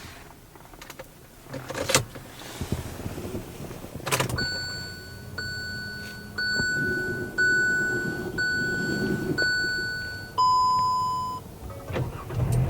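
2017 Hyundai Elantra's dashboard warning chime as the ignition is switched on: six identical chimes about once a second, each fading away, then one lower, louder tone for about a second near the end. A couple of clicks come before the chimes.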